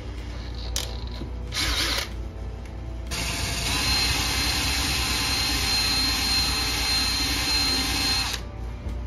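Brushless cordless drill boring into a small wooden box: a short burst about a second and a half in, then a steady run of about five seconds with a high whine, stopping near the end.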